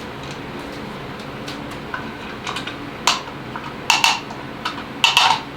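Plastic old-work electrical box being handled and fitted into a hole in drywall: scattered sharp clicks and clattering knocks that begin about two seconds in and grow louder toward the end.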